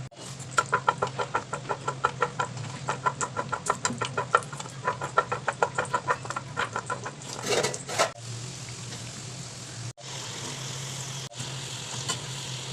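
A fast run of sharp, evenly repeated ticks with a ringing tone, several a second, for about seven seconds. After a cut near the end, a steady sizzle of potato fries frying in hot oil.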